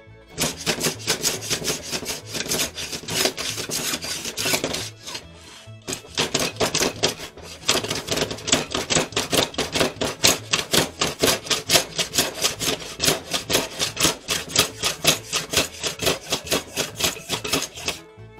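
Small hand plane shaving along a bamboo fly-rod blank in quick, repeated push strokes, about two to three a second, with a short pause about five seconds in. It is taking off excess glue.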